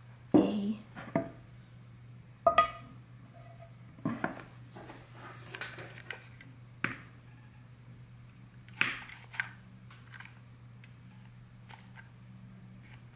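Handling sounds of a dual-purpose hot glue gun fed with sealing wax sticks and a ceramic plate as a blob of wax is dispensed: about eight short clicks and light knocks, the loudest near the start and about two and a half seconds in, over a faint steady hum.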